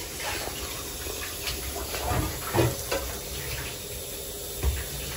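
Water pouring from a stainless steel kettle into a pot of gravy and vegetables on the stove, with a few scattered knocks against the pot.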